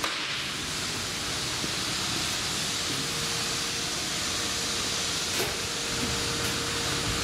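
Steady, even hiss of rushing air with a faint constant hum beneath it: background air noise in a vehicle service shop.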